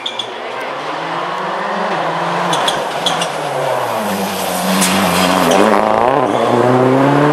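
Ford Focus WRC rally car's engine accelerating hard, its pitch climbing through the gears with a sharp drop at a gear change. A few sharp cracks come in the middle.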